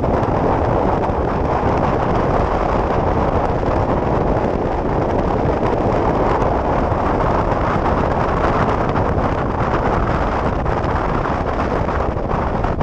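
Steady wind noise buffeting the microphone of a helmet camera on a motorcycle at road speed, with the bike's engine and road noise running underneath.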